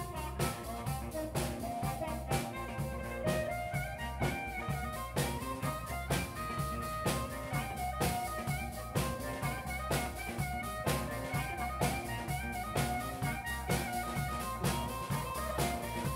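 Live blues band playing an instrumental passage: drum kit keeping a steady beat under electric guitar and keyboard, with a harmonica held cupped to the vocal microphone carrying the sustained lead notes.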